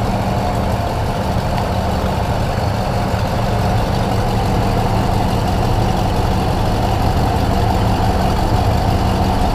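Freshly rebuilt Ford 351 Windsor V8 idling steadily, its SPOUT connector unplugged so the base ignition timing can be checked, with the distributor just advanced to about 10 degrees.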